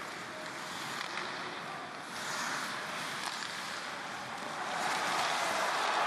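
Ice hockey arena crowd noise with a few faint clicks of sticks and skates on the ice. The crowd swells near the end as the attack reaches the net.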